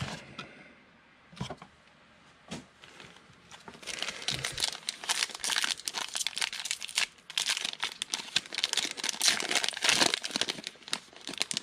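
Plastic wrapper of a 2020 Donruss Elite football card pack crinkling as hands work it open, starting about four seconds in. A few light taps come before that.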